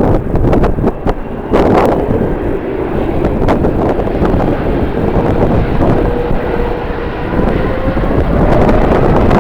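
Strong wind buffeting the microphone over the steady rumble of a jet airliner's engines, with a faint engine whine slowly rising in pitch in the second half.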